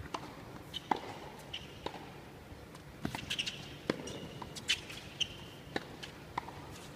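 Tennis rally on an indoor hard court: sharp pops of racket strikes and ball bounces, one every half second to second, with a few brief shoe squeaks, over a hushed arena.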